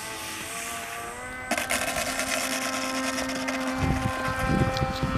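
A model airplane's propeller motor hums steadily as the plane comes in to land. The sound turns suddenly louder and rougher about one and a half seconds in, while the motor hum carries on. A low rumble of wind on the microphone sets in near the end.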